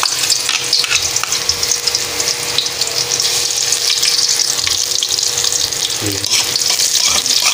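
Minced garlic frying in hot cooking oil in a wok, a steady sizzle full of small crackles. This is the garlic being sautéed until it turns golden brown.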